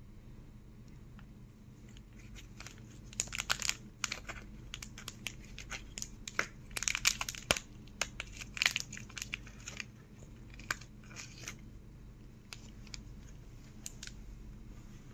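Foil condom sachets crinkling and crackling as gloved hands handle them, in irregular bursts that are loudest about three to four seconds in and again around seven to nine seconds. A faint steady hum runs underneath.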